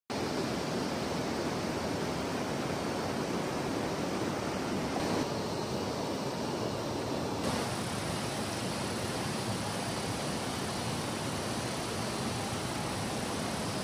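Steady rush of a swollen, muddy river in flood running over rocks, shifting slightly in tone about five and seven seconds in.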